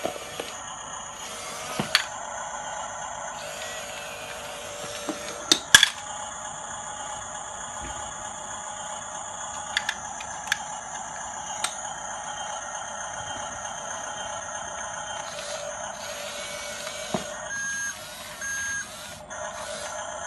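Radio-controlled model bulldozer's electric drive motors and gearboxes whining steadily while the tracked model tries to climb a box, with scattered clicks and knocks, the loudest about six seconds in. Two short beeps sound near the end.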